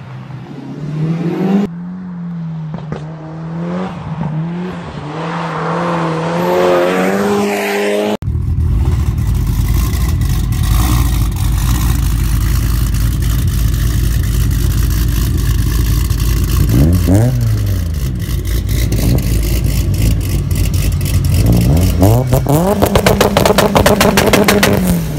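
Mitsubishi Lancer Evolution IX's turbocharged four-cylinder revving while drifting, its note rising and falling. After a sudden change about eight seconds in, an EVO IX on a 2-step launch limiter: a heavy idle, one quick rev, then revs climb and are held at the limiter with a rapid string of pops and bangs from the exhaust near the end.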